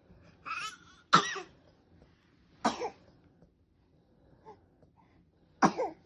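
A pet cat coughing: four short, separate coughs spread over several seconds, the sign of the slight cough the cat has picked up in cold, damp weather.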